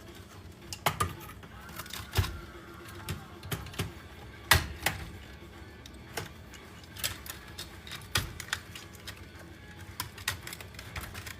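Irregular clicks, snips and clatter of hand tools and metal and plastic parts as an electronics unit is pulled apart for scrap, with one louder knock about four and a half seconds in.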